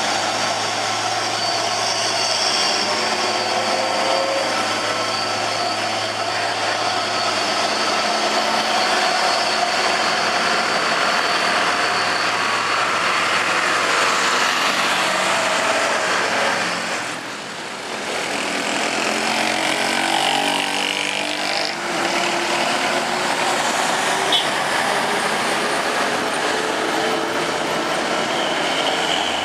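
Heavy road vehicles such as buses and trucks passing with their diesel engines running, a steady low engine hum under continuous road noise. About two-thirds of the way through the noise dips briefly, then an engine note rises and falls as a vehicle goes by.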